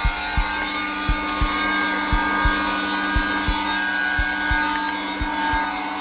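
Heartbeat in a slow lub-dub rhythm, paired low thuds about once a second, over the steady hum and whine of a Zelmer vacuum cleaner running at its lowest setting.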